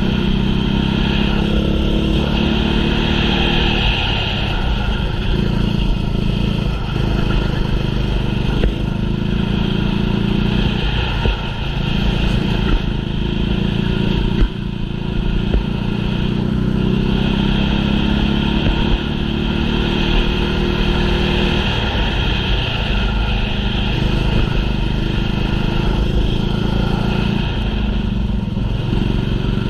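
Small kart engine at racing speed, its note climbing on the straights and dropping off for corners every few seconds.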